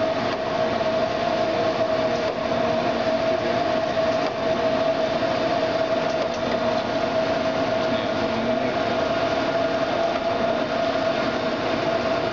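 1993 Nicco NSG-74S surface grinder running under power: a steady hum with a constant whine, mostly the noise of its hydraulic system.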